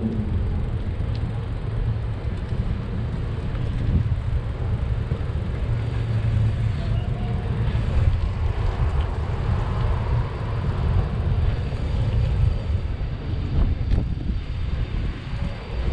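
Steady low rumble of outdoor street noise heard from a moving bicycle: wind on the microphone mixed with passing road traffic.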